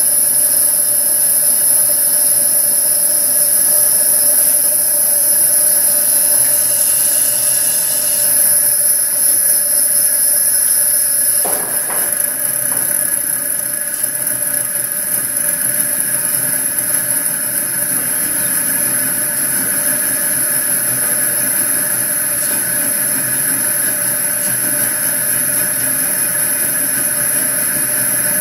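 Coleman 426 white-gas stove burner running with a steady pressurized hiss while its generator preheats. A brief knock comes about twelve seconds in as the fuel valve is worked, and the hiss changes slightly after it.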